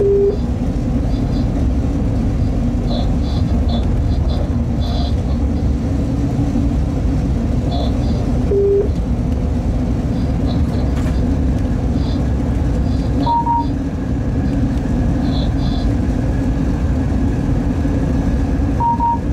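Steady running rumble heard inside a freight train's locomotive cab while it travels at speed. Short electronic beeps sound four times: two lower ones near the start and about nine seconds in, then two higher ones about halfway through and near the end.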